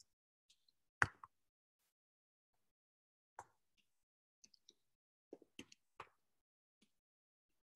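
Computer keyboard keystrokes: single sharp clicks, a louder one about a second in, then a quick run of key taps about four to six seconds in as text is typed.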